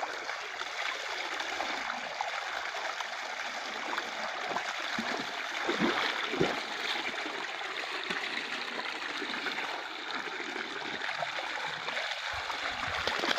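Water gushing steadily out of the top of a self-flowing bore well's casing pipe and splattering into the standing floodwater around it, with a few louder splashes around the middle as hands are put into the flow.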